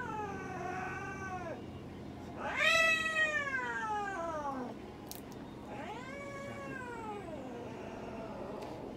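Domestic cat yowling in three long, drawn-out cries, each rising and then falling in pitch, the second and loudest about three seconds in: distress calls from a cat held down for veterinary treatment.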